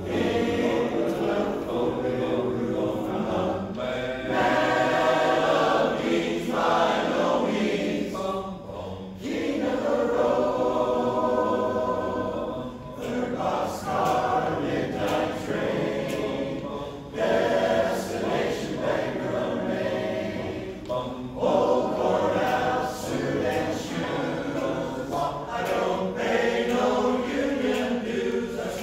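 Men's barbershop chorus singing a cappella in close four-part harmony, phrase after phrase with brief breaths between.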